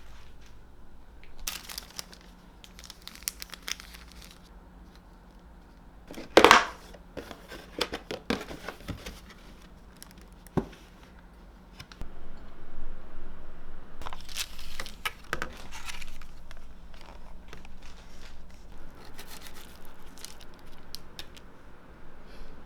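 Intermittent tearing and crinkling of paper or plastic being handled, with a short loud burst about six and a half seconds in.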